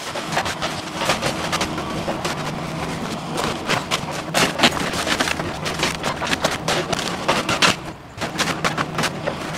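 Compact excavator engine running under load as its arm tears into a house, with repeated cracking and crashing of splintering wood and falling debris, and a short lull about eight seconds in.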